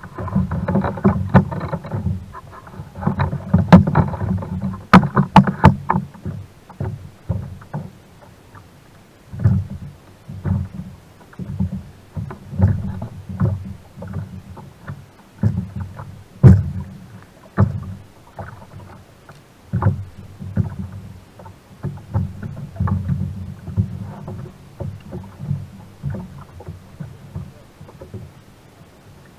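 Sea water lapping and sloshing against a kayak's hull, picked up through a camera mounted on the kayak, in irregular low surges. Sharp knocks against the hull come now and then, the clearest about five seconds in and midway through.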